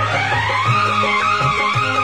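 Background music: an instrumental passage with a wavering melody line over sustained bass notes and a steady pulse.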